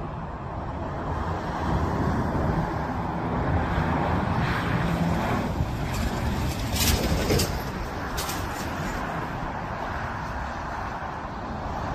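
Airbus A321 airliner on final approach with gear down, its jet engines rumbling louder about two seconds in and easing off after about eight seconds as it flies past.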